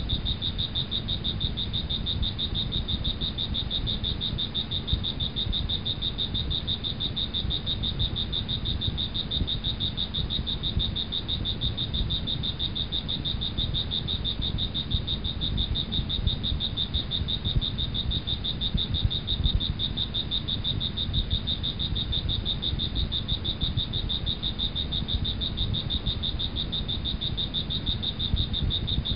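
Steady chorus of calling animals: a high, fast-pulsing trill that never lets up, with a low rumble beneath it.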